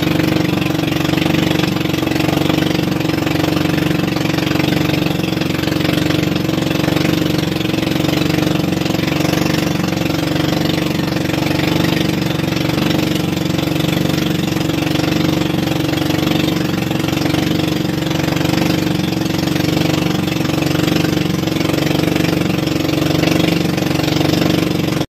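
Engine of a motorized outrigger boat (bangka) running steadily at constant speed, with a steady hiss of water and wind over it.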